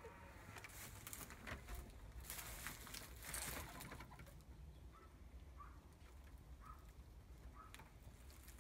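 Straw rustling and brushing for the first few seconds, then a hen's soft, short clucks, about four of them spaced over the last few seconds.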